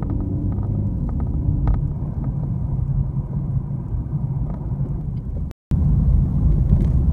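Steady low rumble of a car's engine and tyres heard from inside the cabin as it drives and picks up speed. About five and a half seconds in, the sound drops out for a split second and then resumes.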